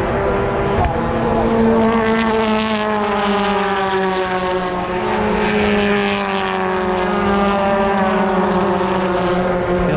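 Continuous engine drone, its pitch sliding slowly downward over several seconds.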